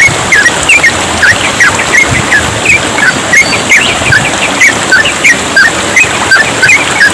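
Yellow-vented bulbuls singing continuously, a dense stream of short chirping notes several times a second, over the steady hiss of trickling water.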